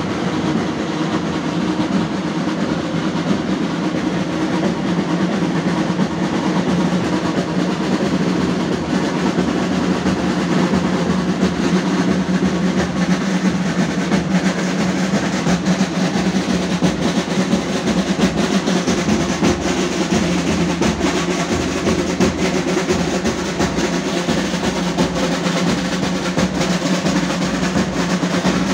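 Street procession drums beaten in a fast, unbroken roll-like rhythm, the drumming that carries the dancing giant figures.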